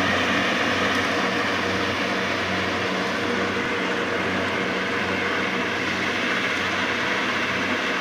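Kubota combine harvester running steadily, a constant mechanical drone with a low hum.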